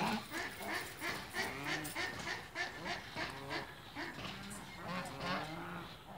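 Many birds calling over one another, with short pitched calls following each other several times a second.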